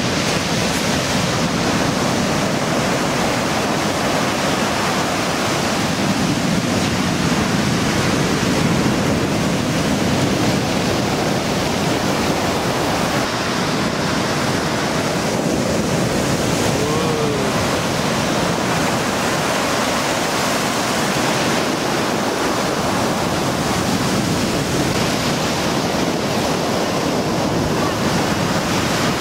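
Sea surf washing steadily onto a pebble beach, a continuous dense rush of breaking waves.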